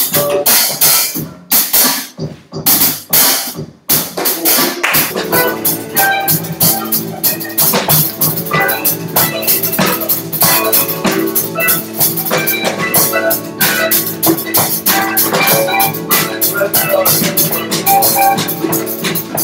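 Live band jamming: a drum kit plays a groove of sharp hits, and about five seconds in a keyboard and electric guitars join with a steady repeating figure.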